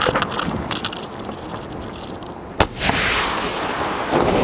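Fireworks being fired at close range: scattered crackles, then one sharp bang about two and a half seconds in, followed by a dense crackling hiss that carries on.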